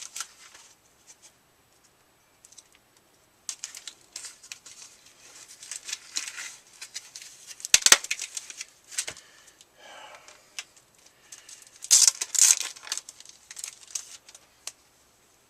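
A mailing package being torn open by hand: irregular bursts of tearing and crinkling packaging with pauses between them, a sharp click a little before the middle and the loudest crinkling about twelve seconds in.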